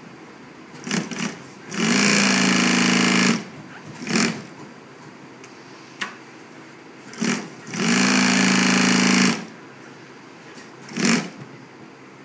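Juki industrial sewing machine stitching golf cart seat upholstery in two runs of about a second and a half each, with short bursts of a few stitches before, between and after them. A single click comes about six seconds in.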